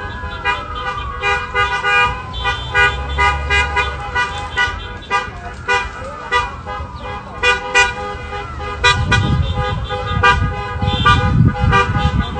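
Car horns honking over and over, many short and long toots overlapping from a line of passing cars.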